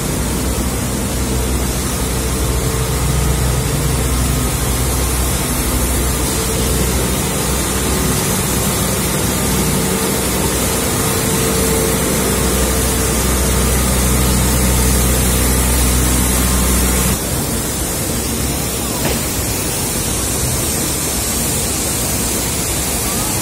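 Sugar mill machinery running: a loud, steady noise with a low hum and a steady mid-pitched tone. About seventeen seconds in, the hum drops away abruptly and a lighter steady noise carries on.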